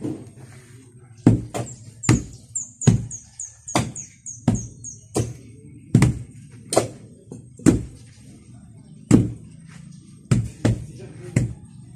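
Two wooden hand tampers pounding a packed-earth floor, an irregular run of heavy thuds, up to about two a second, with a pause a little after the middle.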